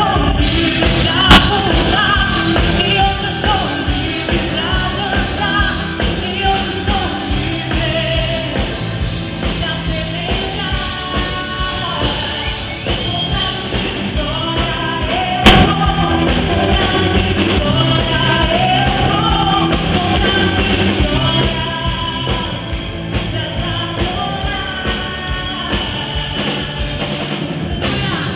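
Gospel band playing a rock-style song with singing over a drum kit, with two sharp pops, about a second in and about halfway.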